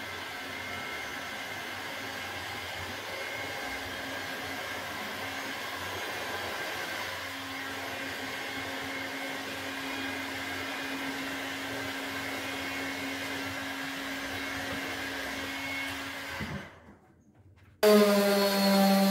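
Heat gun blowing steadily, then cut off. After about a second's pause, a random orbital sander starts running on the bat's wooden blade, much louder, with a steady motor hum.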